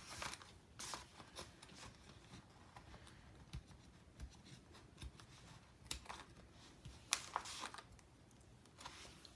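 Faint rustling and scattered light clicks of a printed paper chip bag being handled and pressed by hand, with a few sharper crinkles about six and seven seconds in.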